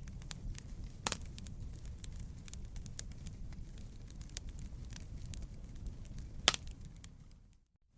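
Wood fire in a fireplace crackling over a steady low rumble, with many small ticks and two sharp pops, about a second in and a little after six seconds. The sound fades almost to silence just before the end.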